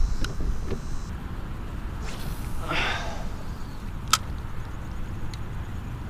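Wind buffeting the microphone as a steady low rumble, with a short breathy sigh about two and a half seconds in and a single sharp click from the spinning reel being handled a second later.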